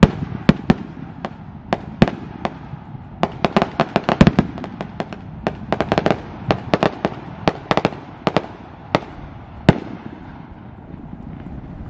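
String of firecrackers going off in irregular bangs, densest a few seconds in and again midway, thinning to a few single bangs near the end.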